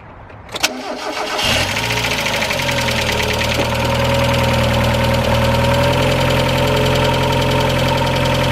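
1991 Mazda Miata's 1.6-litre four-cylinder engine starting: a click about half a second in, a brief crank, then it catches and settles into a steady idle. Over the idle runs a fast, even ticking that the owner puts down to the hydraulic lifters.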